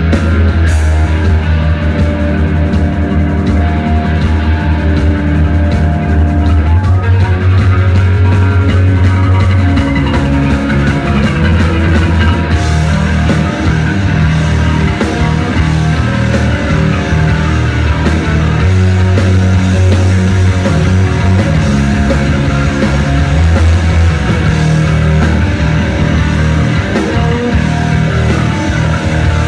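Rock band playing live: distorted electric guitars, bass and drum kit in an instrumental passage, loud and steady.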